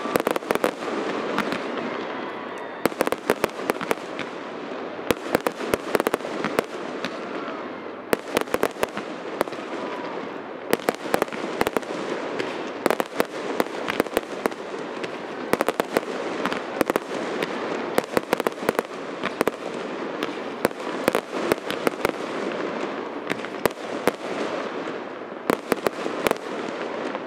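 Aerial fireworks bursting: quick clusters of sharp bangs and pops all the way through, over a constant noisy background.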